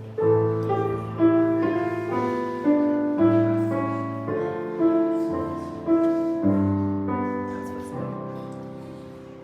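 Piano playing slow chords, each struck note decaying; the last chord fades away near the end.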